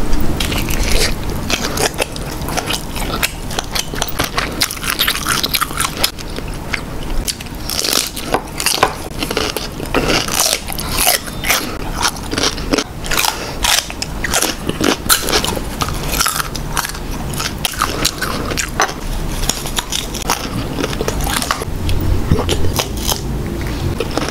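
Close-miked eating sounds: crunching bites and chewing of shrimp and crisp green mango, with a dense, continuous run of crisp crackles.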